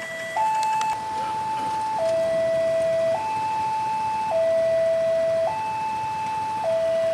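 Railway level crossing warning alarm sounding with the barriers down: a steady electronic two-tone signal alternating between a higher and a lower tone, each held a little over a second, warning that a train is approaching.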